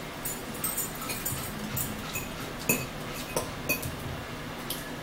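Metal forks clinking against dishes and a bowl during a meal: a few separate sharp clinks, the loudest a little past the middle.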